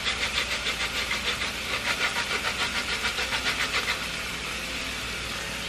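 Lemon zest being grated on a stainless-steel box cheese grater, a fast run of short scraping strokes, about four or five a second, that stops about four seconds in. Under it, riced cauliflower sizzles steadily in the frying pan.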